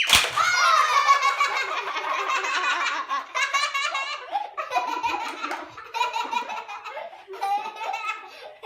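Children laughing hard and giggling in high-pitched peals, with a sharp knock right at the start.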